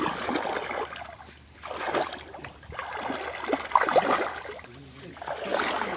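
Hands sloshing and scooping through shallow muddy water, in repeated swells of splashing every second or two.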